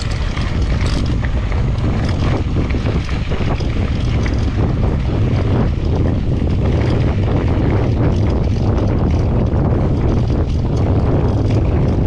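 Wind noise on an action camera's microphone during a fast mountain-bike ride, with continual rattling and clicking from the bike over rough trail.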